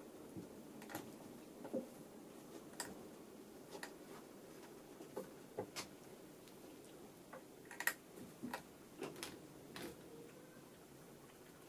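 Faint, irregular small clicks and scuffs from two Singapura kittens play-fighting on a plush blanket, their paws scuffling and tapping against each other and the fabric. The clicks come more thickly in the second half.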